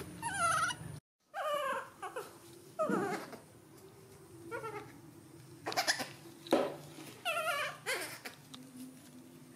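Baby monkey crying in a series of short, high, wavering calls, with a few sharp knocks from handling a little after the midpoint.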